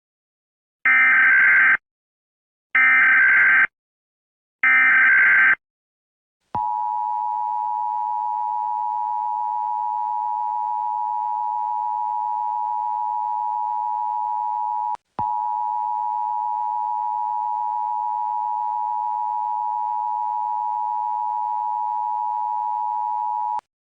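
Emergency Alert System tones: three short bursts of warbling SAME digital header data, each about a second long, then the steady two-tone EAS attention signal held for about 17 seconds, with one brief break about halfway through.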